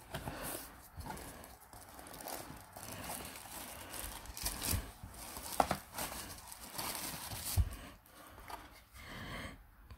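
Protective wrapping rustling, crinkling and tearing as an Android TV box is lifted out of its cardboard packaging and unwrapped, with two sharp knocks, one a little past the middle and one near the end.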